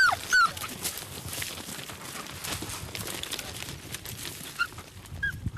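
Podenco Canario hunting dogs giving short, high yelps during a rabbit chase. A stretch of rustling and crackling through dry grass and scrub follows, with a few more brief yelps near the end.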